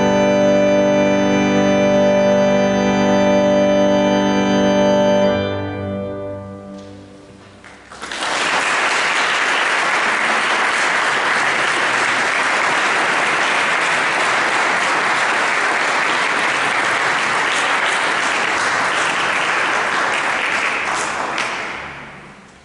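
Organ holding a final chord, which cuts off about five seconds in and dies away in the church's reverberation. A couple of seconds later the audience applauds steadily, fading out near the end.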